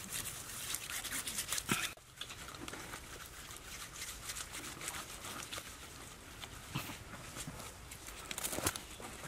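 Bare hands rubbing and smoothing a wet mortar rim, a busy run of short scraping and slapping strokes. A couple of sharper knocks stand out, one just before two seconds in and one near the end.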